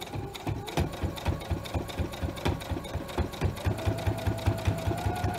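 Electric sewing machine stitching a seam at a steady pace, about five needle strokes a second, stopping near the end.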